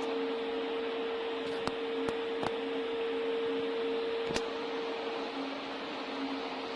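Softgel production line machinery running with a steady hum and hiss, and a few sharp clicks about two to four seconds in.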